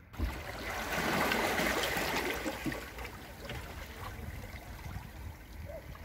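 Sea water lapping and sloshing among shoreline rocks, a steady wash that begins abruptly and is loudest about a second in.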